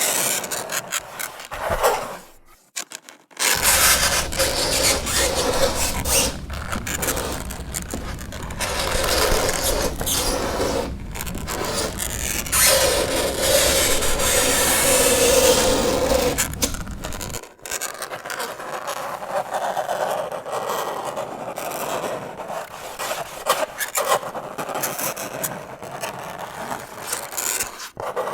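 Fingernails scraping across a chalkboard in repeated raspy strokes, with a brief break about two and a half seconds in and a wavering squeal from about twelve to sixteen seconds.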